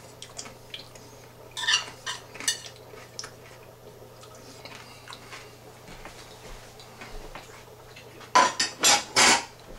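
Metal spoon clinking and scraping on a ceramic plate as leftover sauce is scraped off into a stainless stockpot. A few sharp clinks come about two seconds in, and a quick run of louder clatters comes near the end.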